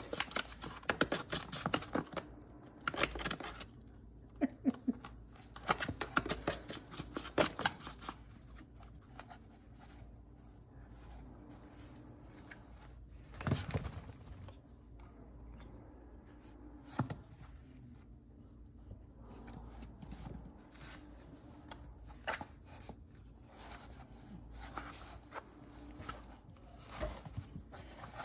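A cat rolling and pawing about in shallow cardboard boxes of toys: bursts of rustling and scraping cardboard, dense for the first eight seconds, then only scattered single scrapes and taps.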